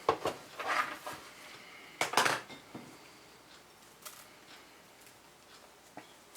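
Hands turning a rack of raw ribs and rubbing seasoning into it against a pan. A few short scraping and clattering sounds come in the first half, the loudest about two seconds in, followed by a couple of faint clicks.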